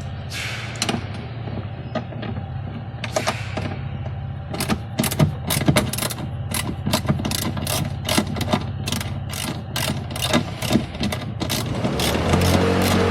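Ratchet clicking in quick series, two to four clicks a second, as fasteners are undone, over a steady low hum. A few scattered clicks come before it, and a louder, fuller sound sets in near the end.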